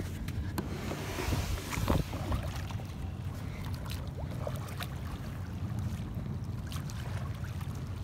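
Water lapping and the light splash of a kayak paddle dipping, over a steady low wind rumble on the microphone, with a few short light knocks.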